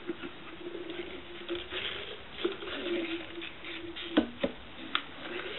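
Plastic bottle used as a jig being worked out of a drysuit sleeve through a freshly glued latex wrist seal: rustling and rubbing of rubber and fabric on plastic, with a drawn-out squeak and a few sharp clicks near the end.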